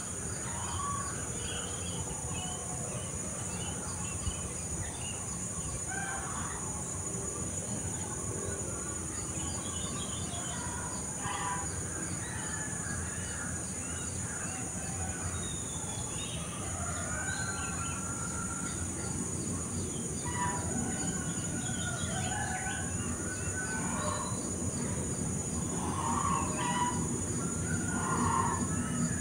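Garden ambience: assorted birds chirping and calling on and off over a steady high insect drone and a low background rumble.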